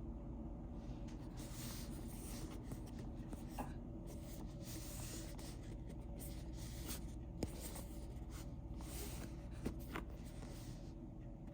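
Hands handling product packaging for unboxing: scratchy rubbing and rustling with a few sharp clicks, over a steady background hum.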